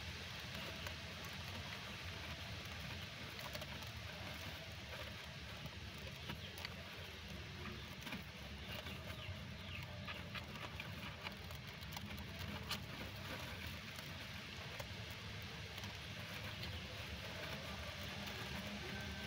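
Steady low background rumble with faint scattered clicks and rustles, and a few faint high chirps around the middle.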